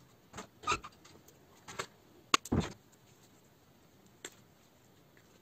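Plastic drivetrain parts clicking and knocking against an aluminium RC buggy chassis plate as they are fitted by hand: about six short knocks, the loudest about two and a half seconds in.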